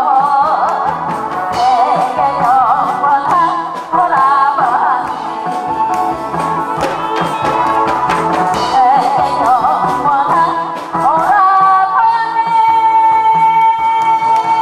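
A woman singing a Korean trot song into a microphone over a backing track, her voice wavering with vibrato, then holding one long note near the end.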